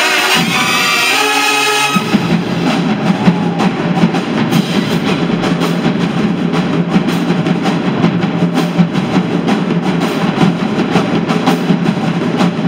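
High-school marching band: the brass plays a held phrase that breaks off about two seconds in, and the drumline then carries on alone with a fast, steady percussion cadence.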